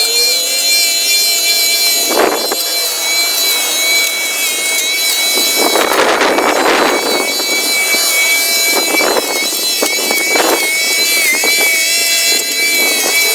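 Garden Groom Midi corded electric hedge trimmer running with a steady high-pitched motor whine. Its enclosed blades and suction cut into hedge foliage in several rough crunching bursts, the longest about five to seven seconds in.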